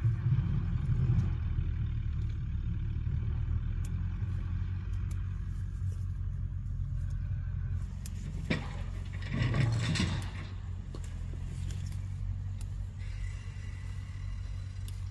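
A steady low motor rumble, like a vehicle engine running. A sharp knock comes about eight and a half seconds in, and a short louder noise follows about a second later.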